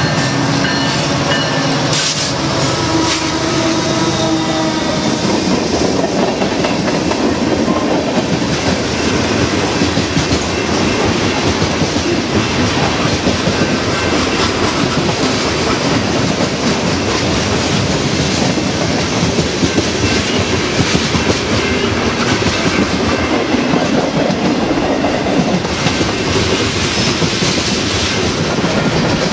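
BNSF freight train passing at speed. The locomotives' horn chord sounds and ends about three seconds in, then a long string of tank cars and boxcars rolls by with steady wheel roar and clickety-clack.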